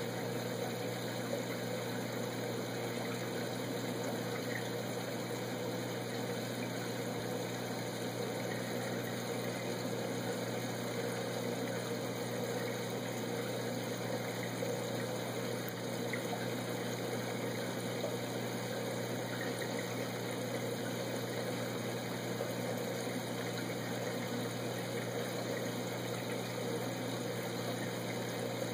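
Aquarium pump and filtration running: a steady low hum with an even rush of moving water.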